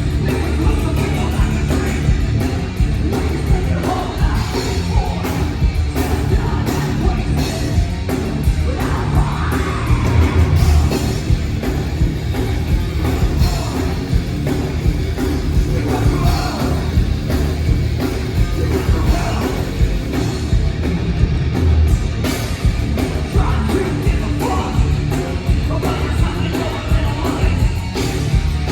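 A heavy rock band playing live: loud distorted guitars, bass and pounding drums with shouted, yelled vocals, continuous and dense with no breaks.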